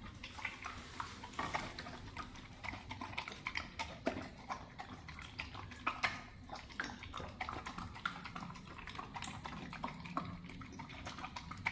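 A dog eating, with many quick, irregular wet smacks and clicks.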